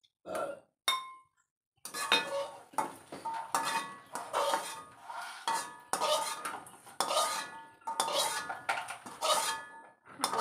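Metal spatula scraping and clinking against a steel wok while scooping cooked food out into a bowl: a few clinks, then from about two seconds in a run of short ringing scrapes about twice a second.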